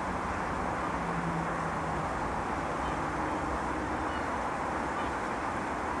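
Steady outdoor background noise: an even, constant hiss and rumble, with a faint low hum near the start and a few faint short high notes.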